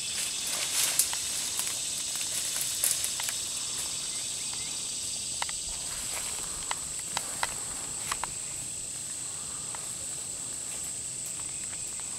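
Insects chirring in a steady high-pitched drone, with scattered light clicks and rustles in the first few seconds and again around the middle.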